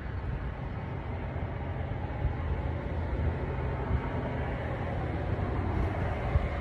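Strong wind on the microphone, a steady low rumble with a hiss over it.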